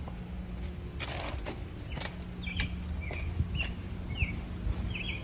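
Footsteps on a concrete path, as sharp scattered clicks, with about six short bird chirps from about halfway through over a steady low hum.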